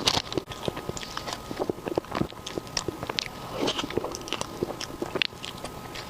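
Close-miked eating sounds: a person biting and chewing food, with many quick wet clicks and crackles from the mouth.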